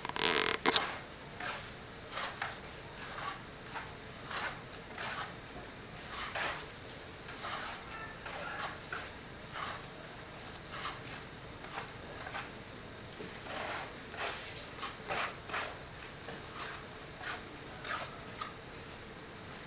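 Hand trowels scraping and tapping wet cement render onto a wall in short, irregular strokes, one or two a second, with a louder clatter right at the start.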